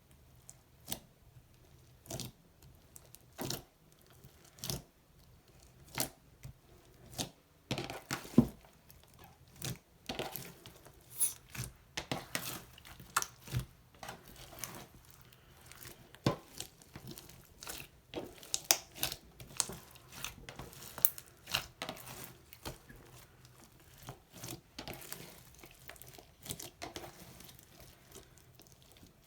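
Slime being worked by hand, giving irregular sticky pops, clicks and crackles. These are sparse at first and come thicker from about eight seconds in.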